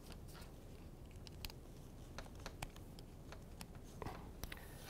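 Faint, scattered small clicks and light taps of wires and plastic crimp connectors being handled at a relay on a tabletop.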